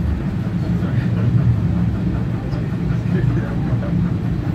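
Carriage of a steam-hauled heritage train running along the track: a steady rumble of wheels on rails, heard from inside the carriage.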